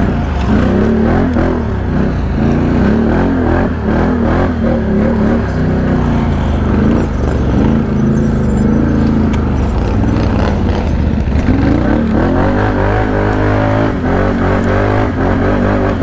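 ATV engine running under changing throttle on a rough trail, its pitch rising and falling again and again over a steady low rumble.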